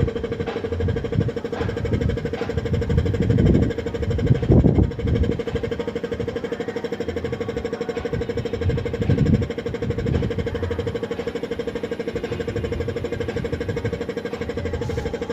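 A machine's motor running with a steady, evenly pulsing hum. Irregular low rumbles come over it in the first few seconds and again about nine seconds in.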